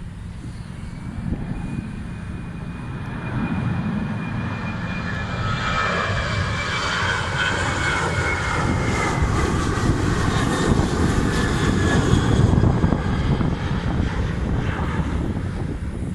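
Jet airliner's engines, a whining tone slowly falling in pitch while the engine noise swells about five seconds in and peaks near the end. Strong wind buffets the microphone underneath.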